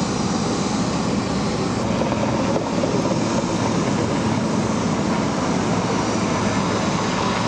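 VH-3D Sea King twin-turbine helicopter (Marine One) approaching to land, its rotor and turbine noise steady throughout.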